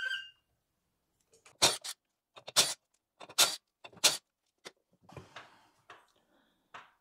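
A jack being pumped to lift a riding mower: four sharp clanks, about one every 0.8 s, followed by a run of fainter knocks and rattles.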